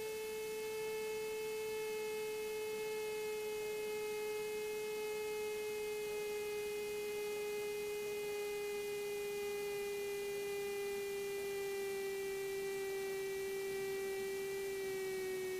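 The Cessna 182RG's engine heard as a steady hum with a row of overtones, its pitch sliding slowly down as power comes back during the landing, with a small drop near the end.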